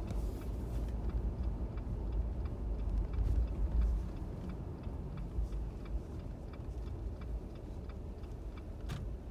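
Low engine rumble heard inside a 2018 Jeep Wrangler JL, a little louder over the first few seconds, with faint regular ticks about twice a second and a sharper click near the end.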